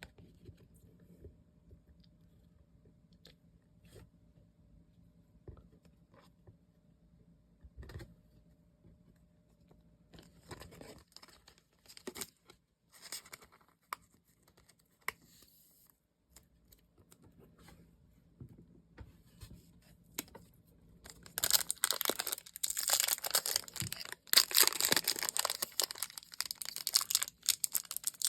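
Packaging being handled and torn open: scattered faint clicks and taps at first, then rustling, and from about two-thirds of the way in, loud continuous crinkling and tearing of plastic wrapping.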